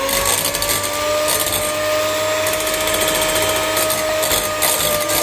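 Electric mixer running at a steady high speed, beating egg yolks with powdered sugar, its motor whine holding one even pitch.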